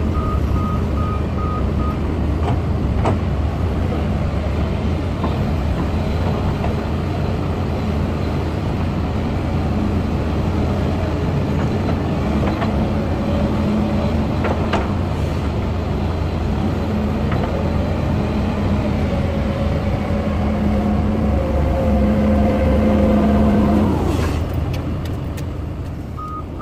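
Excavator diesel engines running steadily, with a whine that rises and holds from about halfway to near the end as the machine works. A pulsing alarm beep sounds for the first two seconds and again just before the end.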